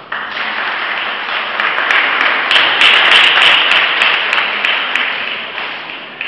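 Audience applauding. The clapping starts suddenly, grows to its loudest about three seconds in, then dies away.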